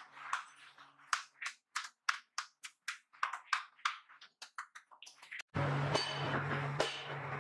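A quick run of short, sharp taps and scrapes, about three or four a second: a hand tool working the raw clay of a freshly cast toilet body. About five and a half seconds in, a steady low hum starts and runs under them.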